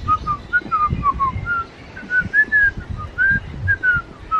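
A run of short, clear whistled notes, about two or three a second, each gliding up or down at a fairly high pitch, with low rumbling noise beneath.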